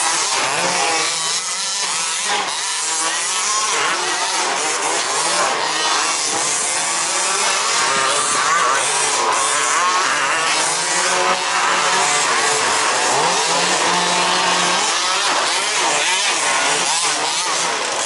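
Several 1/5-scale petrol RC race cars at once, their small two-stroke engines buzzing at high revs. The pitch rises and falls over and over as the cars accelerate and brake, and the engines overlap into a steady din.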